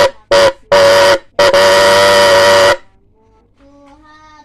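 Snail-type electric horn sounding in four blasts with one steady pitched tone: two short, then a longer one, then the longest at about a second and a half. The horn is said to be faulty from water getting inside it.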